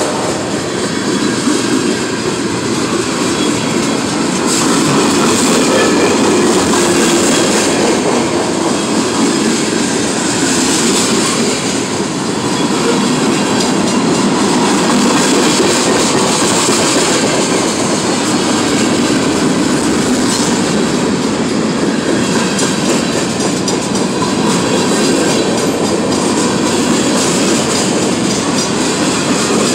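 Manifest freight train cars, a tank car and centerbeam flatcars, rolling past at close range: loud, steady noise of steel wheels running on the rails.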